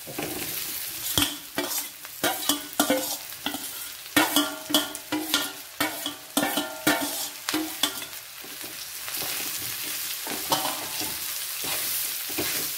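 A steel spoon scraping and knocking against a metal wok as pieces are stirred into onions frying in oil, the pan ringing briefly with each stroke. The strokes die away after about eight seconds, leaving a steady sizzle of frying.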